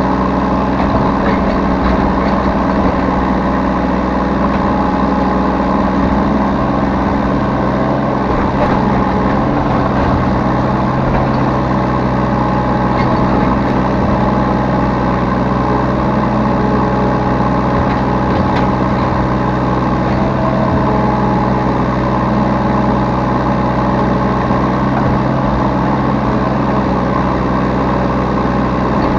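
Diesel engine of a Yanmar B3Σ mini excavator running steadily, heard close up from the operator's seat.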